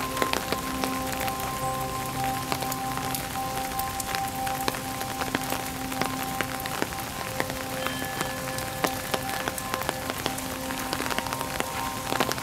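Steady rain falling, with many sharp taps of individual drops landing close by.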